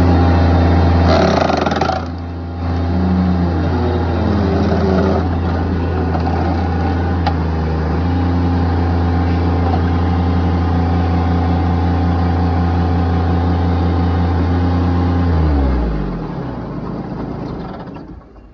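Bobcat MT85 mini skid steer's engine running at high throttle, powering a log splitter attachment through its hydraulics. The note dips and wavers about two seconds in, then holds steady, and winds down near the end.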